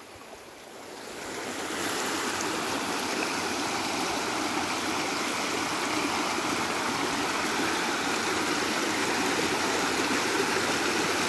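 Shallow rocky stream running over stones and small cascades: a steady rush of water that swells up over the first two seconds, then holds.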